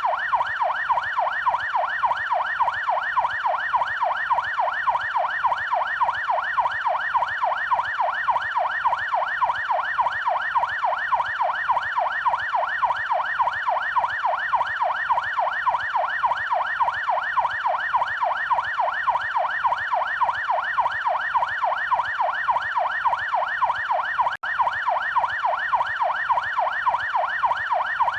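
Police yelp siren wailing continuously, its pitch sweeping rapidly up and down about three or four times a second. It cuts out for an instant about three-quarters of the way through, then carries on.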